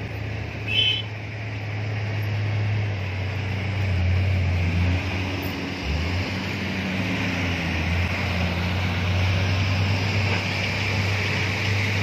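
Heavy diesel engines of a coach bus and a truck running on a steep mountain road: a steady low drone whose pitch shifts midway as the vehicles work around the bend. A short high beep sounds about a second in.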